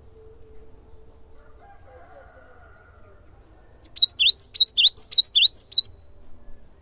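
Cinereous tit (gelatik batu) singing: a quick run of about a dozen sharp whistled notes in alternating high and low pairs. It starts a little over halfway through and lasts about two seconds.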